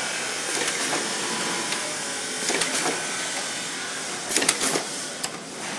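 Horizontal flow-wrap bearing packing machine running: a steady mechanical whirr with short bursts of clicking and clatter every second or so, the loudest about four and a half seconds in.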